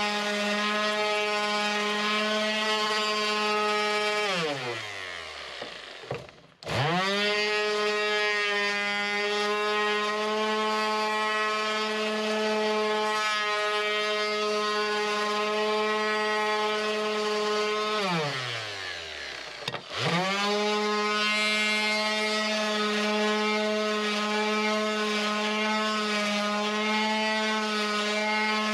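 Electric random orbital sander sanding mahogany with a steady high hum. About four seconds in it is switched off and winds down to a stop, then starts again and spins straight back up. The same happens again about two-thirds of the way through.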